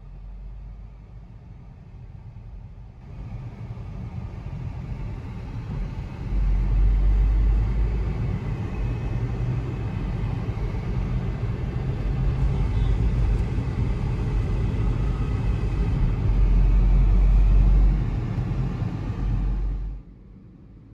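Road noise of a moving car heard from inside the cabin: a steady rush over a heavy low rumble. It comes in suddenly a few seconds in, swells louder twice, and cuts off abruptly a second before the end.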